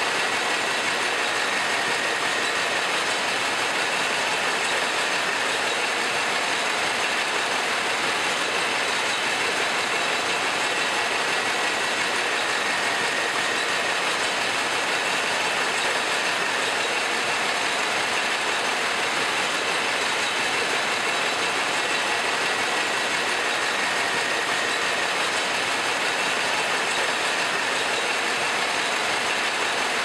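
Continuous-motion form-fill-seal packaging machine for microwave popcorn pouches, running at about 350 pouches a minute: a steady, even mechanical noise without let-up.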